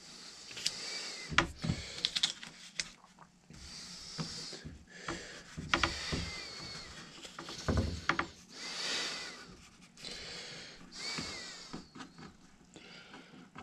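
Paper pattern rustling and rubbing against a wooden board as it is held and shifted by hand, in several soft swells, with a few light knocks on the board, the heaviest about a second and a half in and about eight seconds in.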